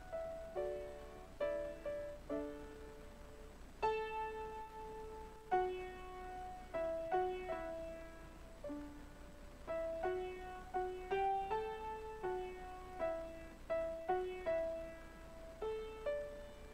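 Solo piano playing a slow melody over chords, each note struck and left to die away.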